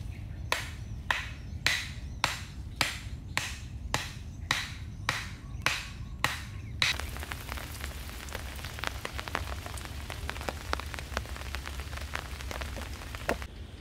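Evenly spaced sharp knocks, about one every 0.6 s, for the first half, then rain pattering on a tarp shelter roof, a steady hiss full of small sharp drop-ticks.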